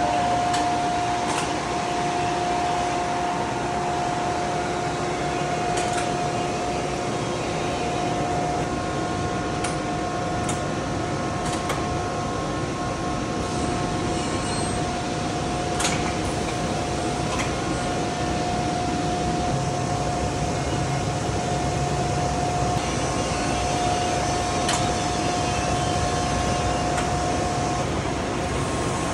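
CNC glass-cutting machine running steadily, a constant whine over a broad mechanical hiss, with a few sharp ticks scattered through it.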